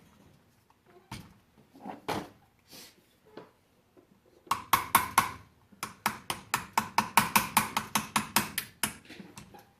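Hammer tapping on a steel punch against an AR-15 lower, working at a rear takedown pin that is stuck because its detent spring has come out into the pin's groove. A few scattered light taps come first, then about halfway through a quick run of sharp metal taps, about five a second, with a brief pause after the first few.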